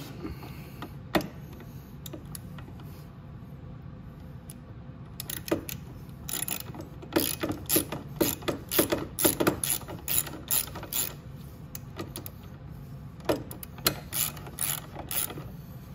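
Metal clicking of a 12 mm exhaust-mount bolt being fed through and its nut threaded on by hand, with hardware and tools tapping against the mount. It starts with a single click, then runs as a string of sharp clicks two or three a second for several seconds, with a few more near the end.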